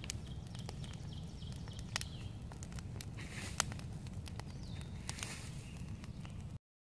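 Large wood campfire burning, with irregular sharp crackles and pops over a steady low rumble. The sound cuts off abruptly near the end.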